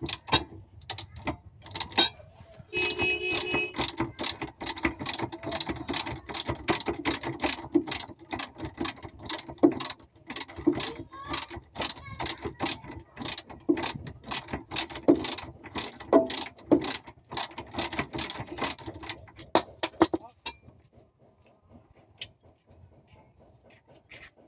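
Hand ratchet wrench clicking rapidly, several clicks a second, turning a bolt on a Toyota Avanza's rear shock absorber mount; the clicking stops about twenty seconds in.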